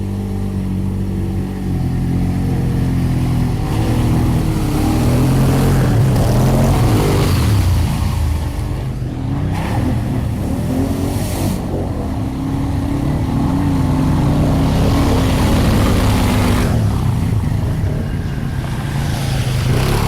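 Stock Polaris Sportsman ATV engine revving up and down under load as it pushes through a flooded mud trail, with repeated bursts of splashing water and mud.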